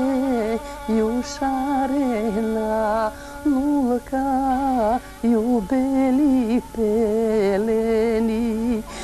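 Music: a woman singing a slow Macedonian folk song in long, ornamented phrases with short breaks between them, over a steady accompaniment.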